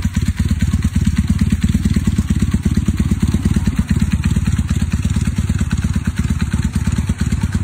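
Motorcycle engine idling with a steady, even beat of exhaust pulses.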